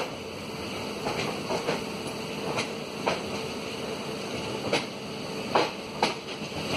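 Passenger train rolling slowly over the track, its wheels clanking irregularly over rail joints, with sharp knocks roughly a second apart over a steady rumble.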